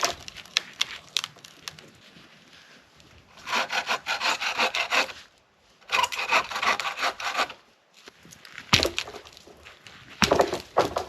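Wood being cut with a hand saw in two runs of quick strokes, each a little under two seconds long, with scattered sharp knocks and snaps of wood before and after.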